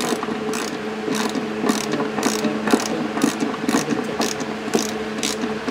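Socket ratchet wrench clicking as it turns a tail light mounting nut inside a car's trunk, a run of clicks about two a second. A steady hum runs underneath.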